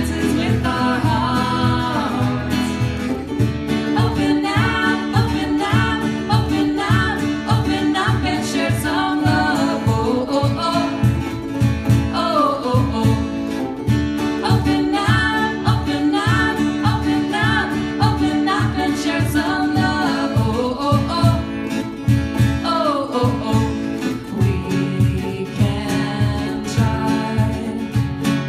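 A singer performing a country-style song over plucked guitar accompaniment.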